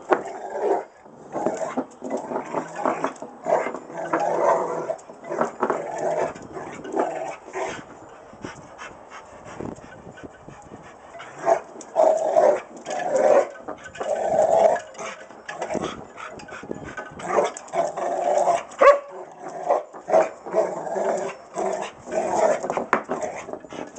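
Rottweiler growling in repeated bouts as it plays with a ball on concrete, with a few sharp knocks and scrapes from the ball and its paws.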